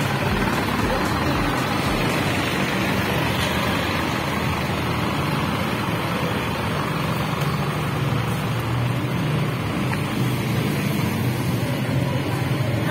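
Truck engine running with steady road and wind noise, heard from on board the moving truck.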